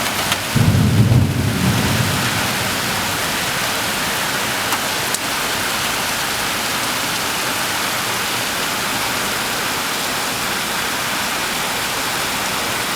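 Rain falling steadily, with a short low rumble of thunder about a second in.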